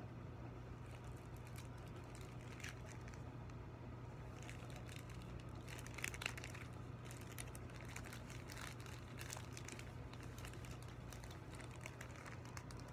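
Mylar foil balloon and its packaging crinkling and crackling as they are handled and unfolded, in irregular bursts that are loudest about six seconds in. A faint steady low hum runs underneath.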